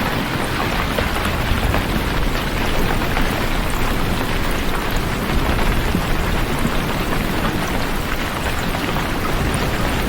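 Heavy rain falling steadily, a dense even hiss of drops with a strong low rumble underneath.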